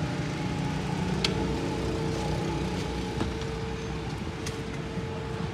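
A steady motor drone with a constant hum that comes in about a second in. Over it are a few sharp clicks as the metal push bar and handle of a glass door are tried.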